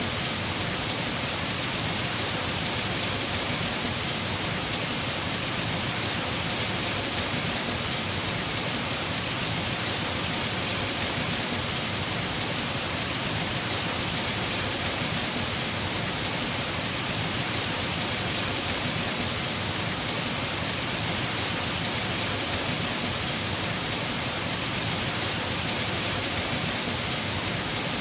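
Heavy rain drumming on a house roof, a steady dense hiss that holds even throughout.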